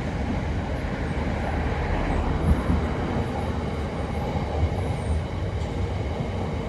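Train passing at a steady pace, its wheels rumbling on the rails, with one sharper knock about two and a half seconds in.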